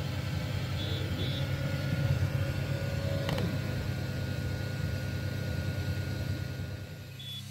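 xTool M1 desktop laser cutter at work on plywood: its fan and air-assist pump run with a steady low hum. A few faint short high tones come about a second in and near the end. Near the end the hum drops in level and turns smoother.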